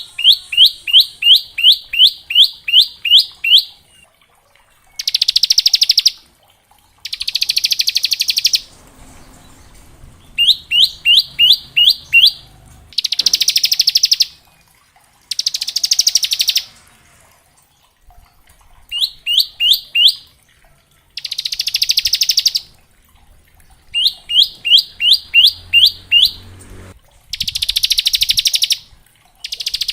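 Bar-winged prinia (ciblek) singing: runs of quick, sharp down-slurred whistled notes, about three a second, alternating with dense buzzing trills of a second or so each, the rattling 'ngebren' song.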